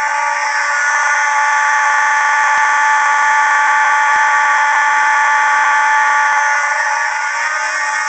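Simplex 2901-9806 fire alarm horns sounding continuously with a loud, steady buzzing tone and no pulsing: the system is in alarm after a pull station was activated.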